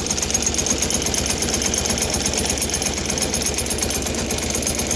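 Air-cooled single-cylinder Deutz diesel of an old Case roller compactor running steadily with a rapid, even beat.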